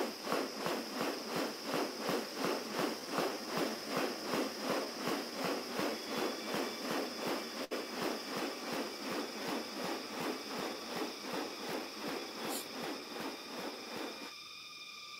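Male bird-of-paradise in courtship display, its spread wings and plumage giving a rapid rhythmic rustling, a few swishes a second, over a steady high-pitched hum. The rustling stops about a second before the end as the display ends.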